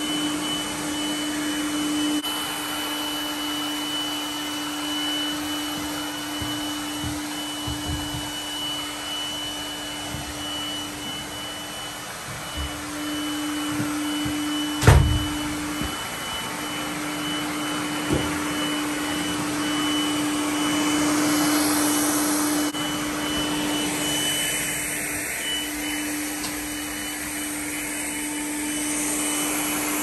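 Lefant robot vacuum cleaner running over a hard floor: a steady motor hum with a high whine. About halfway through there is a single sharp knock, and a lighter click a few seconds later.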